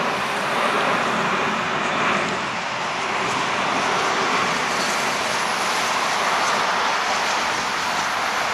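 Airbus A330-200's twin jet engines at climb power, a steady rushing jet noise as the airliner climbs away overhead.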